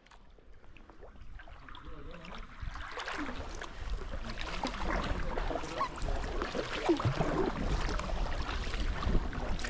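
Sea kayak being paddled: paddle blades dipping and water trickling and splashing off them. The sound fades in over the first few seconds.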